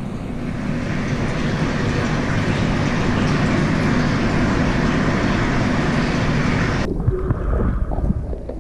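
Steady rushing of aquarium water and filtration, with no other sound over it. About seven seconds in it cuts sharply to a duller, deeper rumble with a few soft bumps.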